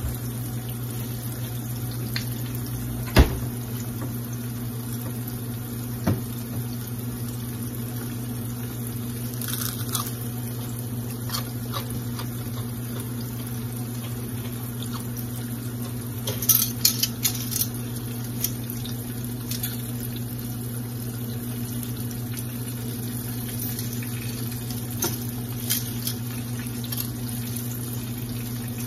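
Battered onion rings deep-frying in oil in a cast-iron skillet: a steady sizzling hiss over a low hum. A sharp knock about three seconds in, and a little past halfway a short run of crackly crunches from a crispy fried onion ring.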